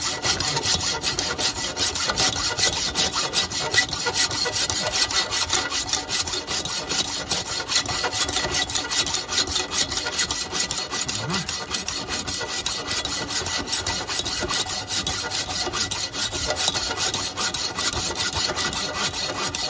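Hand hacksaw cutting through a rusted steel muffler clamp on an exhaust pipe, in quick, even back-and-forth strokes that rasp steadily without a pause.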